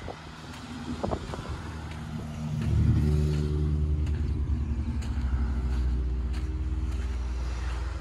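An engine comes up loud about two and a half seconds in and keeps running at a steady low pitch, with soft footsteps on concrete steps underneath.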